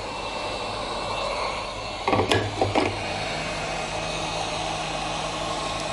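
Heat gun blowing steadily, an even rush of fan and air. A couple of short louder sounds come through about two seconds in.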